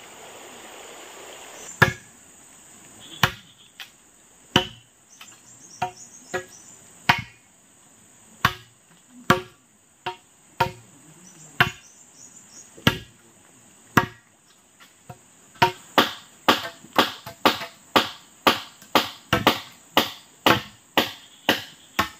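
Repeated chopping blows, scattered at first, then settling about two-thirds of the way in into a steady rhythm of about two a second. Behind them insects drone steadily at a high pitch.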